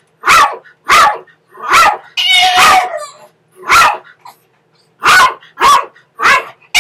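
A small dog barking sharply and repeatedly, about eight high barks spaced half a second to a second apart, with one longer drawn-out yelping cry a little over two seconds in. It is a hospitalised dog calling out for attention.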